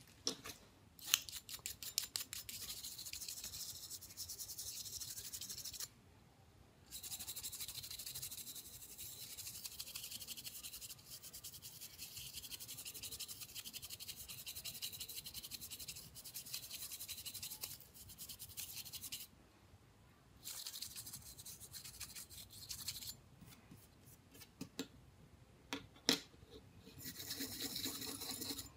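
Rapid, hissy rubbing strokes against a small hard object, as in scrubbing or scraping a phone part by hand. They come in runs several seconds long, broken by a few short pauses.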